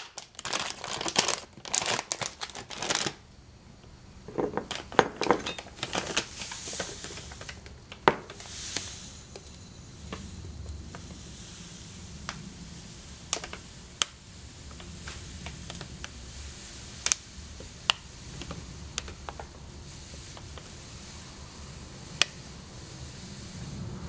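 A tea packet crinkling as it is handled for the first few seconds, then loose black tea leaves pouring from the packet into a glass jar as a soft, steady rustle, with a sharp click every few seconds.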